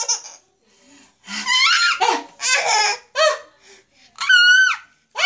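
Baby laughing in several short bursts, with a high squeal about four seconds in.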